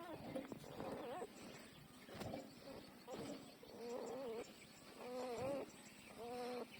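Newborn puppies whimpering and squeaking while nursing: a string of short, wavering, pitched whines, about one a second.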